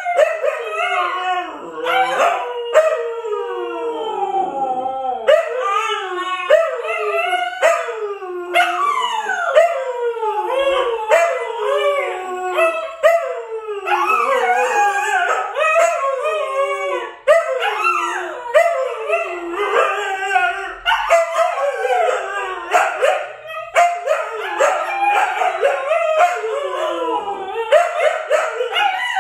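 Two Siberian huskies howling together, their overlapping calls gliding up and down without a break.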